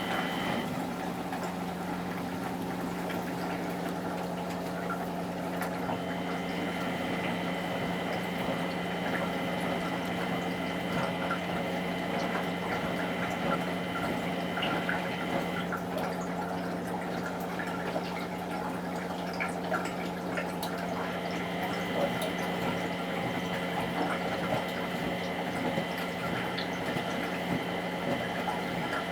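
Miele Professional WS 5426 commercial washing machine taking in water: water rushing in through the inlet and detergent drawer, over a steady hum. A high whistling tone comes and goes in the flow, dropping out twice.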